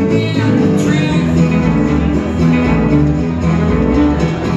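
A small string band playing live, with banjo and guitars plucked and strummed together in a country or bluegrass style.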